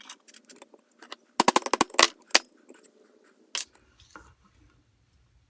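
Sharp strikes on a chisel, cutting away the remains of an old screwdriver handle from the shank: a quick run of about five blows, then single blows about half a second apart and one more a little later.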